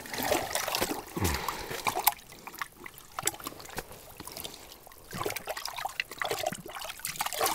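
Water sloshing and dripping in an ice-fishing hole as a small lake trout at the surface is grabbed by hand and lifted out: uneven small splashes and trickles, quieter in the middle.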